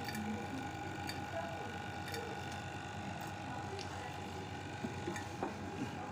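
Refrigeration vacuum pump running steadily, evacuating the fridge's sealed refrigerant circuit after a compressor replacement, with a few faint clicks over the hum.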